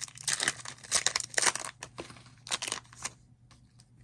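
Crinkling and tearing of a foil trading-card pack wrapper being ripped open, in a run of noisy rustling bursts that stops after about three seconds.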